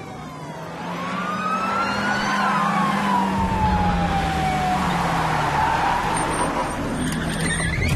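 Police car siren wailing, one slow rise and fall in pitch, growing louder over the first few seconds as the cars approach. A low rumble joins about three seconds in.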